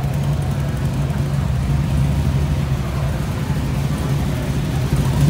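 A low, steady rumble of an American muscle car's V8 engine running at slow speed in crawling traffic.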